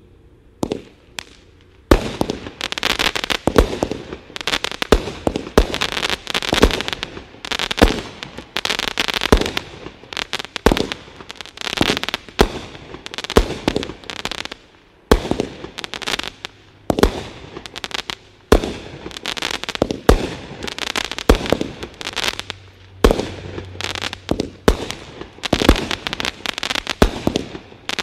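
A 25-shot consumer fireworks cake firing. After a few faint clicks, a steady run of shots starts about two seconds in, each launch followed by the pops of its bursting stars, continuing about one shot a second.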